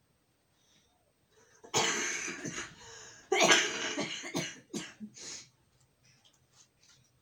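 A person coughing: two long, harsh coughs, then a few shorter ones.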